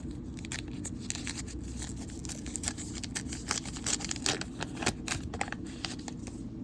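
A 1989 Upper Deck foil card pack being torn open by hand, the foil wrapper crackling in a quick run of sharp crinkles, busiest in the middle.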